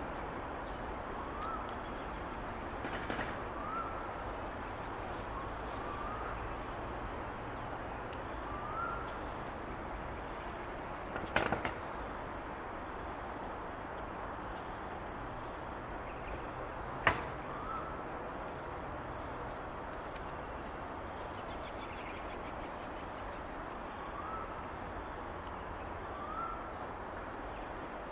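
Outdoor bird ambience: faint short rising chirps every couple of seconds over a steady high insect drone. A sharp click about 17 seconds in is the loudest sound, with a smaller cluster of clicks about 11 seconds in.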